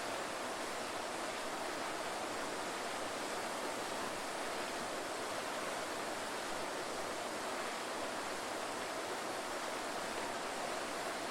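Waterfall: a steady rush of falling water, even and unchanging.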